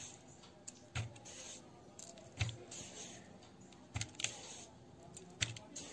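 A tablespoon tapping lightly against a mixing bowl as spoonfuls of sugar are tipped onto raw eggs: about six scattered taps over a faint hiss.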